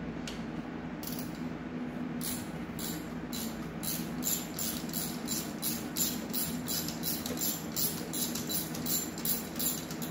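Ratchet wrench clicking in short back-strokes as an intake manifold nut is undone, sparse at first and then steady at about three strokes a second from about four seconds in. A steady low hum runs underneath.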